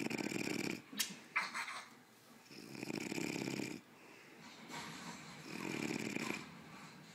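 A man snoring in his sleep: three long snores, one every two to three seconds, with a sharp click and a short breath sound between the first two.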